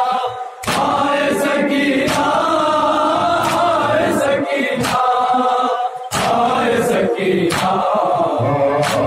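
A group of men chanting an Urdu noha, a mourning lament, together, with sharp slaps of hands beating chests (matam) in a regular beat about every second and a half.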